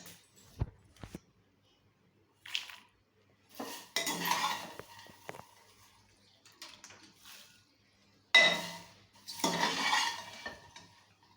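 Popped popcorn being tipped and scraped out of a metal cooker into a bowl: rattling and metal clinking in several separate bursts, the loudest starting about eight seconds in.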